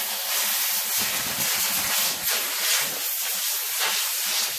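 Can of compressed air hissing steadily through its thin straw, blowing dust out from between a CRT monitor's front-panel knobs and buttons.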